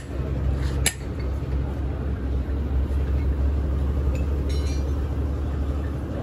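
Steady low mechanical hum of workshop background, with a sharp metal clink at the start and another about a second in, and a brief scraping rustle about four and a half seconds in.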